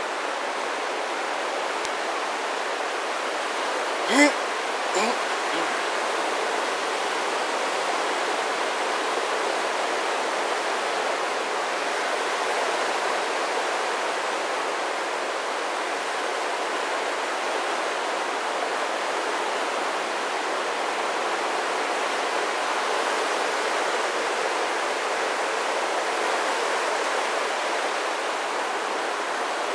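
Steady rushing of ocean surf breaking along the shore. A short sharp sound stands out about four seconds in, with a fainter one about a second later.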